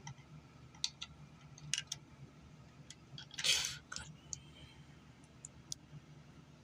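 Plastic Lego bricks clicking as they are handled and fitted together: a few sharp, separate clicks, with a brief louder rush of noise about three and a half seconds in.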